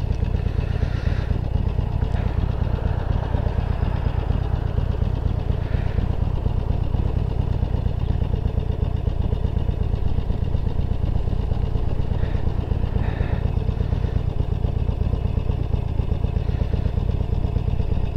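A 2009 Harley-Davidson Sportster 1200 Low's V-twin engine idling steadily while the bike stands still.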